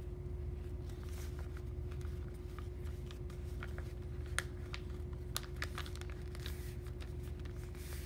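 Sheet of paper being folded and creased by hand: scattered crisp rustles and small taps as the folds are pressed flat, over a steady low hum.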